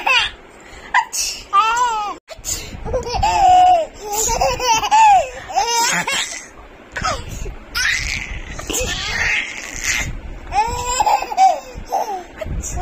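A baby laughing hard in repeated bursts of high-pitched belly laughter with breathy gasps between them.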